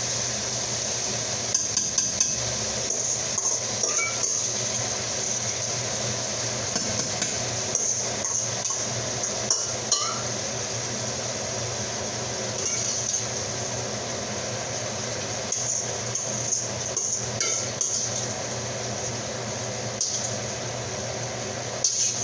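Jasmine rice being washed by hand in a stainless steel bowl: scattered clinks and knocks of the metal bowl as it is handled and tipped, over a steady background hum.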